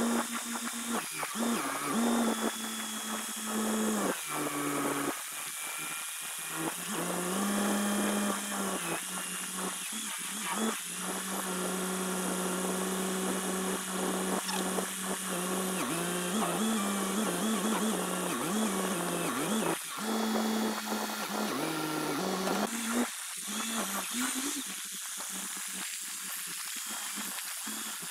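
Telescoping forklift's engine and hydraulics running under load as it pushes hay blocks into a trailer, with a steady engine note that shifts up and down several times as the boom is worked. The note falls away near the end.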